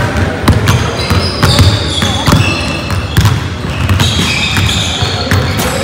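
Basketballs dribbled on a hardwood gym floor, thudding about twice a second with the echo of a large hall, mixed with short high sneaker squeaks.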